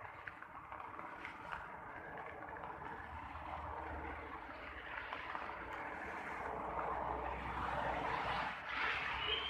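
Traffic on a rain-soaked street: a steady hiss of tyres on wet road that swells as a vehicle passes near the end.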